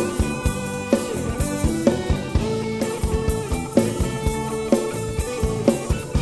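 Live band playing an instrumental stretch ahead of the vocals: a drum kit keeping a steady beat, with heavy strokes about once a second, under held melody notes.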